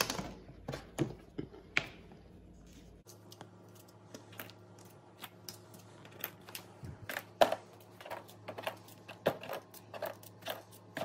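Plastic hydroponic net cups clicking and tapping as they are pulled from a stack and pressed into the holes of a plastic container lid: irregular light clicks, a sharper knock at the start and another about seven seconds in, over a faint low hum.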